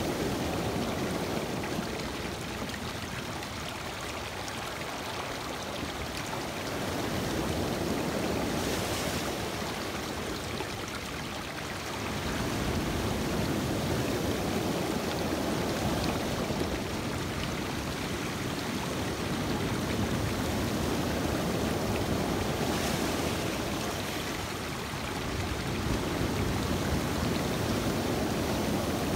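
Lake surf breaking and water washing over a stony beach, a continuous rush that swells and eases every few seconds as the waves come in.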